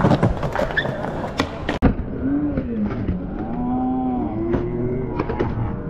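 Skateboard clattering on concrete, with sharp clicks and knocks of the board and wheels. About two seconds in, long low sounds slide up and down in pitch over further clicks.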